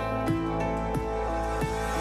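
Background music: sustained tones over a steady pulse of notes, about three a second.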